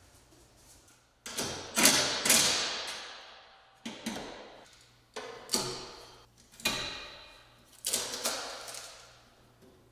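Metal light-fixture hanging hardware clanking and rattling as it is fitted to the ceiling: about eight sharp clanks, starting about a second in, each ringing out for about a second in the empty garage.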